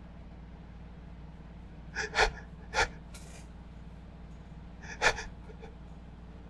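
A person's short, sharp gasping breaths as a sneeze builds: a quick pair about two seconds in, another under a second later, and one more about five seconds in.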